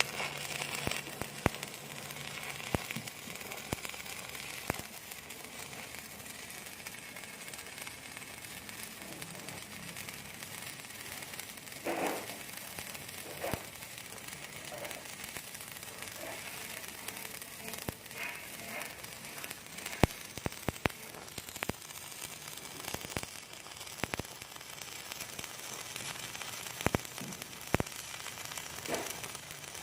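Electric arc welding on IWF250 steel beam: the arc gives a steady crackling hiss with scattered sharp pops and spatter ticks.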